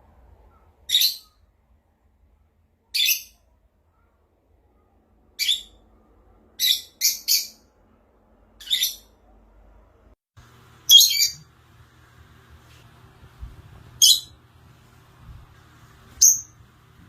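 A parrot giving short, high-pitched calls, about ten in all at uneven gaps of one to two seconds, three of them in quick succession about seven seconds in. A faint low hum comes in a little past halfway.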